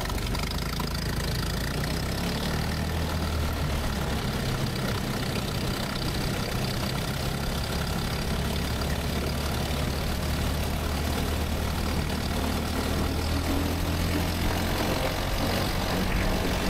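Dune buggy engine running at a steady pitch while the buggy is driven.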